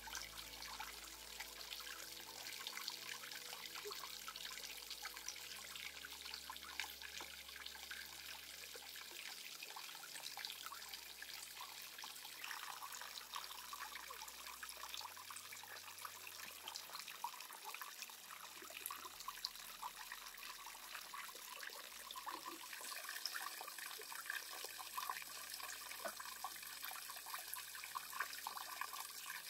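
Water trickling steadily into a pond, a dense patter of small splashes and drips.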